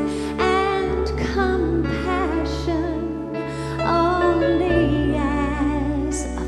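Live performance of a slow worship song: a woman singing with vibrato over orchestral accompaniment, with sustained bass notes underneath.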